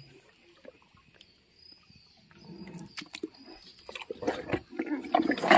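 Hippopotamus biting and chewing carrots: scattered crunches and wet mouth noises, getting louder in the last second and a half.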